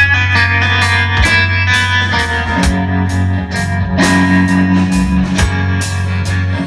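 Live rock band playing an instrumental passage: electric guitar chords over a steady drum beat and bass, with no singing.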